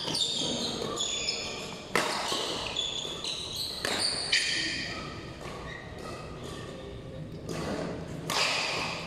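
Badminton rally: sharp racket strikes on the shuttlecock, one about two seconds in and another about two seconds later, with sports shoes squeaking on the court floor throughout.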